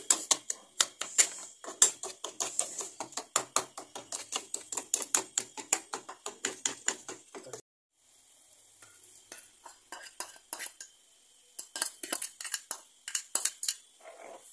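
A metal spoon stirring quickly in a small bowl, clinking about five or six times a second. After about seven and a half seconds it stops abruptly. Then come sparser spoon clinks against a metal pot over a faint steady hiss of boiling.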